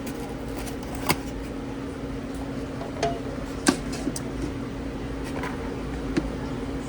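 Steady mechanical hum of commercial kitchen ventilation running, with a few short sharp clinks and knocks, the clearest a little past halfway.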